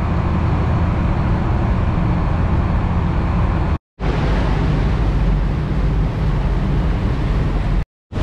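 Passenger boat's engine running under way: a steady low drone with a rushing noise over it. It drops out abruptly for a moment about four seconds in and again near the end.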